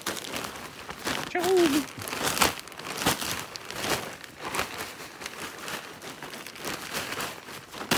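Plastic soil bag crinkling in irregular rustles as it is pulled and shaken empty, with loose potting mix spilling out of it onto the bed.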